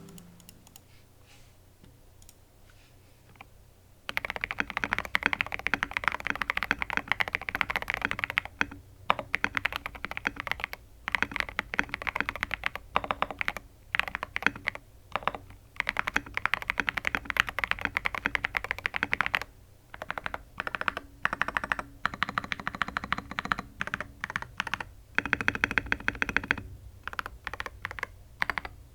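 Custom Mojo68 mechanical keyboard being typed on in a sound test. It has lubed Tecsee Ice Candy switches with polycarbonate housings and a nylon stem, and a tape-modded PCB, which give a deep, thocky keystroke sound. It is quiet for about the first four seconds, then comes in fast runs of keystrokes broken by short pauses.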